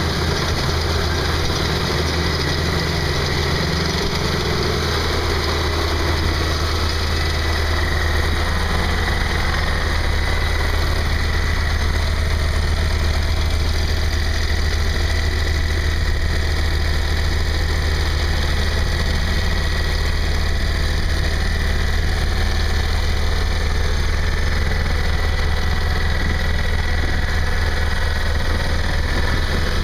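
Ditch Witch 8020 plow/trencher/backhoe's engine idling steadily, with no change in speed.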